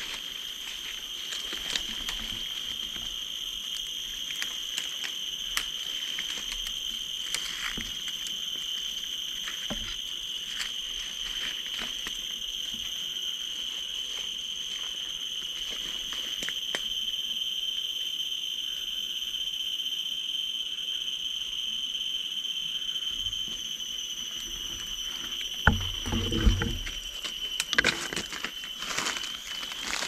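Insects in the forest keep up a steady, unbroken high-pitched drone, with scattered faint clicks. Near the end come a few low thumps and some rustling from handling of the gun as it is swung down.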